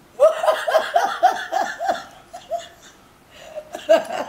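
A woman laughing out loud in a quick run of 'ha-ha' pulses, about four a second, for about two and a half seconds, then a shorter burst of laughter near the end.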